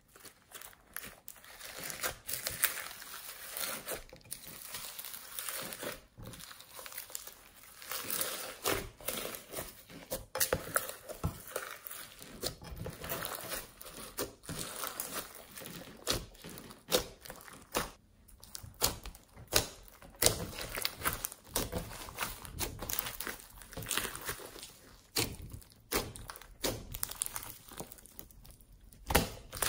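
Slime mixed with foam beads being kneaded, squeezed and stretched by hand: continuous irregular wet squishing and crackling, with louder sharp pops now and then.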